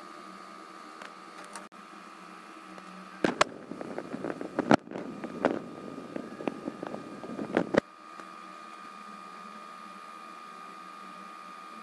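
A steady appliance-like hum with a thin high whine. From about three to eight seconds in it is broken by a run of sharp clicks, knocks and rustling.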